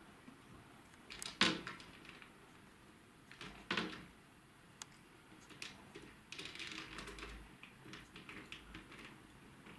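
Vertical-blind wand knocking and clicking as a cat chews and paws at it. There are two sharper knocks in the first four seconds, then a run of small quick clicks in the second half.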